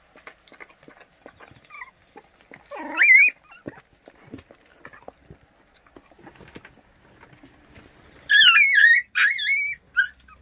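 Baekgu puppies whimpering: one high, wavering cry about three seconds in, then a run of high, wobbling whines and yips near the end.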